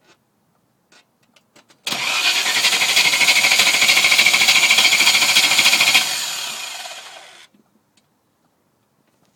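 A V8 engine being cranked by its starter motor for about four seconds with an even pulsing beat, then fading away over a second and a half without catching: a no-start. A few faint clicks come before the cranking.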